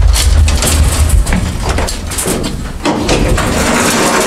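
Antique elevator running as the car goes down: a low rumble for the first couple of seconds that then fades, with repeated rattling and clatter throughout.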